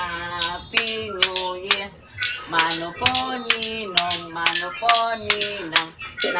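A woman singing a melody, holding notes and sliding between them, over sharp clicks that keep a steady beat.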